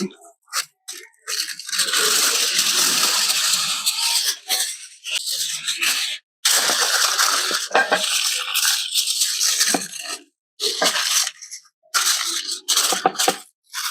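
Sheet of aluminium foil crinkling as it is handled and pressed into shape over a pan, in two long rustling stretches followed by shorter scrunches.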